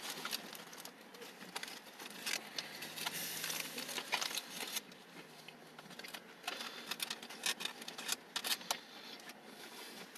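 Faint, scattered clicks and rustles of something being handled, over a faint low hum that stops about halfway through.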